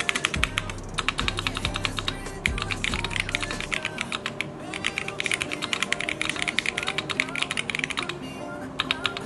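Fast, continuous typing on a Keychron Q1 Pro, an aluminium-cased custom mechanical keyboard, with many key clicks a second that pause briefly near the end, over background music.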